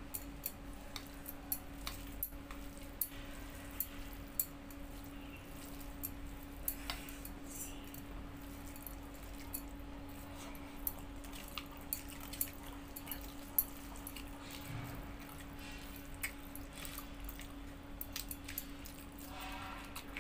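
Eating rice and curry by hand from a steel plate: wet squishing as the fingers mix the rice, chewing, and scattered small clicks and clinks of fingers and bangles against the plate, over a steady low hum.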